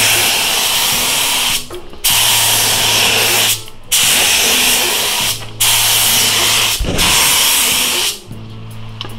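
Gravity-feed DeVilbiss Tekna ProLite spray gun with a 1.3 tip spraying clear coat at 50 PSI: a loud, steady compressed-air hiss in four long passes, cut briefly three times as the trigger is let off between passes.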